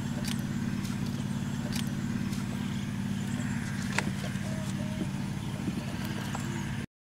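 A steady low engine hum, with a few faint clicks over it, cutting off suddenly near the end.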